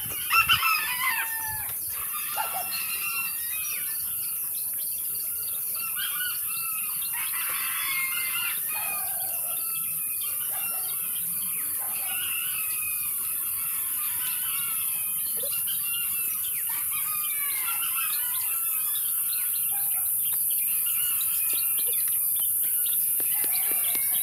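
A dense chorus of many birds chirping and calling, with a steady high hiss underneath. A few knocks sound near the start.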